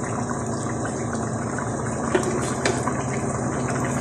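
Tomato-and-spice kabsa broth boiling in a pan, a steady bubbling hiss, with a couple of light clicks a little after halfway through.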